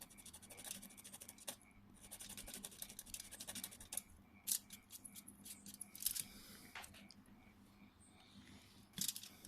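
A small tool scratching and scraping at a phone's circuit board in rapid runs of light scratches and ticks with short pauses between them, working at the board with care not to scratch the green solder mask.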